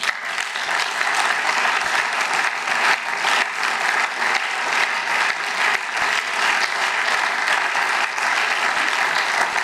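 Applause from many members of a parliament, a dense, steady clatter of clapping hands.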